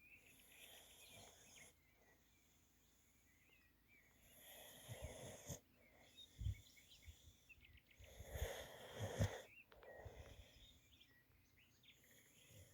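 Boxer dog snoring in its sleep, a snoring typical of the breed: a few slow, raspy breaths a few seconds apart, each with a low flutter, the loudest about halfway through and again about two-thirds in.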